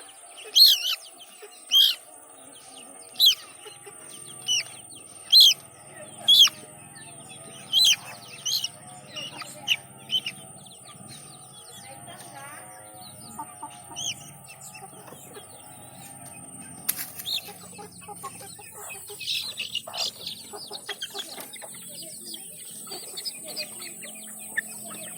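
Village chickens calling: short, sharp high calls about once a second through the first ten seconds, then a quicker flurry of clucks later on.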